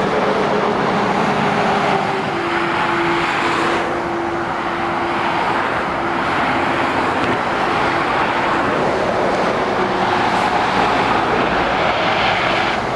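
Dual-carriageway motorway traffic of heavy lorries and cars passing, a steady mix of tyre noise and diesel engines running.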